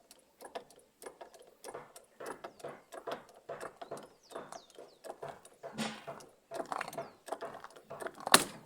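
Low car jack being pumped, its mechanism clicking in a steady rhythm of about two strokes a second. Near the end comes a single sharp crack: the wooden plank under the jack breaking under the load.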